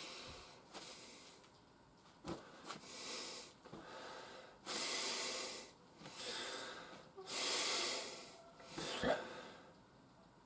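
A man breathing deeply and audibly, about six long hissing breaths in a row, each roughly a second long with short pauses between, the loudest near the middle.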